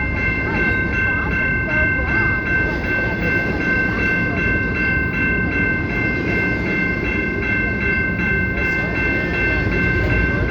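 CPKC freight train rolling past with a steady rumble of the cars. Several steady high-pitched tones sound over it at once.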